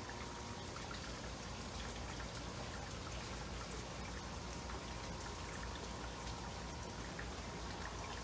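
Air bubbles rising and popping through a water-filled bubble tube, driven by an air pump: a steady fizzing patter of many small pops, with a low hum underneath.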